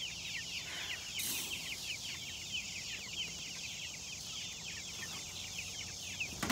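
A flock of Cornish Cross meat chicks peeping nonstop, a dense chorus of short, high chirps that fall in pitch. There is a brief rustle about a second in and a sharp knock at the very end.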